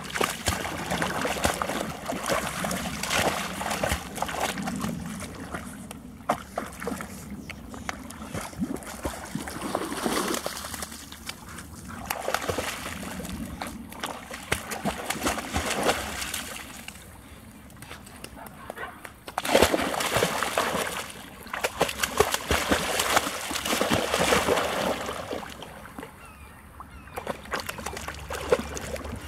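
Shallow lake water splashing and sloshing as a puppy wades in and paddles, in bursts of several seconds with quieter gaps between them.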